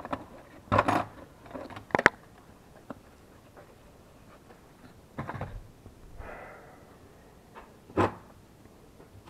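A handful of separate knocks and clunks, spaced a few seconds apart, as engine parts are handled and set down.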